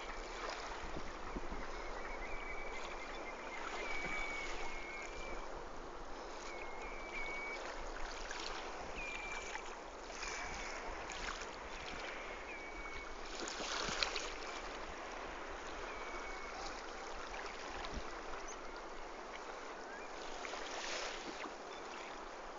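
Steady wash of wind and gently lapping river water at the tideline, with low wind rumble on the microphone. Short high whistles repeat every second or two through the first half or more, and there is a brief louder rustle about two-thirds of the way through.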